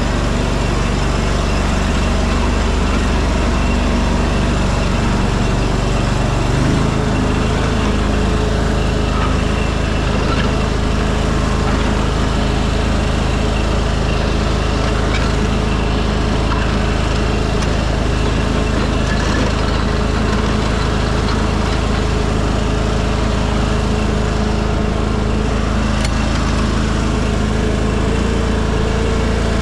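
Cub Cadet 2554 garden tractor engine running steadily while mowing. Its note shifts a little about seven seconds in.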